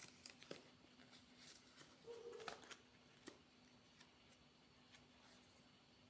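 Near silence, with scattered faint clicks and light taps, a few a second at most, the clearest about half a second and two and a half seconds in.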